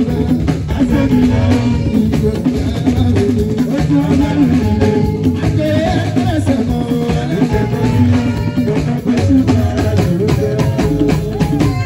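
Live Fuji band playing on stage: electric guitars, drum kit and talking drums keeping a busy percussion beat, with a man singing over it into a microphone.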